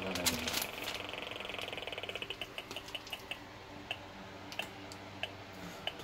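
Audio signal of a Gigahertz Solutions NFA1000 magnetic-field meter ticking rapidly, then thinning to a few sparse ticks about two seconds in: the field from the fan motor is dropping as a second layer of cobalt-alloy shielding sheet goes in. Handling clatter of the sheets near the start.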